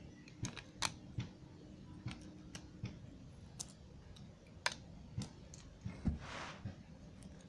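Small plastic clicks as LEGO minifigures are pulled off the studs of a LEGO plate: about a dozen sharp clicks at irregular intervals, with a short rustle a little past six seconds.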